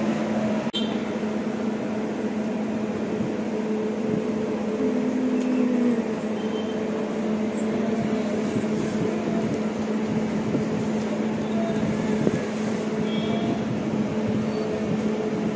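A steady machine hum with a continuous low drone, running evenly throughout.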